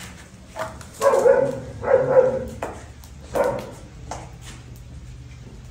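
An animal calling several times in short loud calls, the three loudest about a second apart in the first three and a half seconds.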